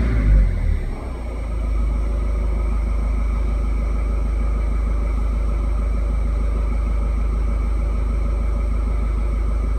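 Turbocharged car engine settling from a rev back to idle in the first second or so, then idling with a steady low hum while making almost no boost.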